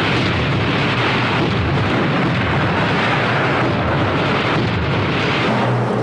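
A loud, steady roar of explosion-like noise, with no single blast standing out, as a battle sound effect.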